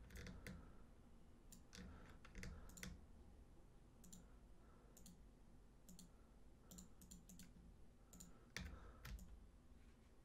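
Faint, irregular clicks of a computer mouse, single and in quick pairs, scattered through a quiet room background.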